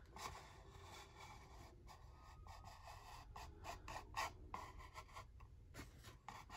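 Faint scraping and rubbing as a plastic figure's round base is turned by hand on a table, with a few small clicks.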